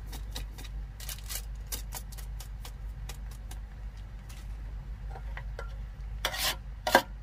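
Yakisoba noodles crackling and ticking in a hot aluminium pot over a steady low hum. Near the end a metal ladle scrapes and clinks against the pot as it is picked up and pushed into the noodles.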